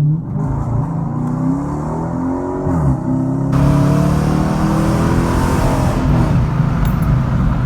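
Dodge Challenger R/T's V8 engine accelerating hard under full throttle, heard from inside the car. Its pitch climbs steadily, drops sharply on an upshift about three seconds in, then climbs again, louder.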